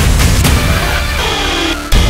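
Loud trailer-style soundtrack music with heavy low drum hits; it dips briefly near the end, then lands on a hard hit.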